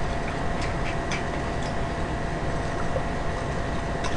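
Steady background room noise, an even hiss with a faint steady hum, and a few faint light clicks.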